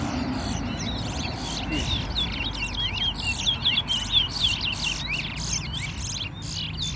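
Caged competition songbirds singing in a fast, continuous run of short whistled notes that sweep up and down, with sharp chips among them. This is a singing race, in which each song is counted.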